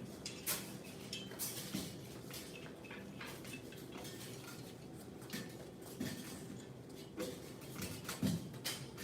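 Butterfly knives clinking and tapping metal on metal: light, sharp clicks at irregular intervals as the pair is handled and swung.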